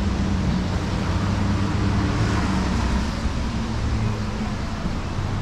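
Car engine and road noise, a steady low hum while driving.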